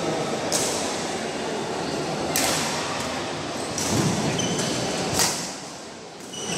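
Badminton singles rally: several sharp racket hits on a shuttlecock a second or two apart, over the steady background noise of a sports hall, with a dull thud of a footfall near the middle.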